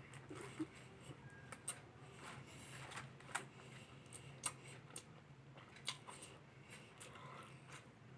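Quiet eating sounds: scattered sharp clicks and smacks from chewing and handling chicken fillet and rice, over a low steady hum.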